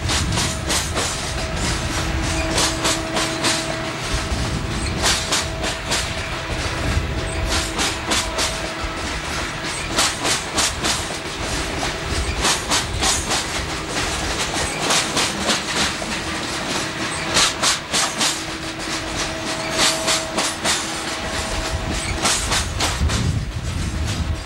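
Loaded coal hopper cars rolling past on a curve, their steel wheels clacking sharply and often over rail joints above a steady rumble. A faint humming tone comes and goes.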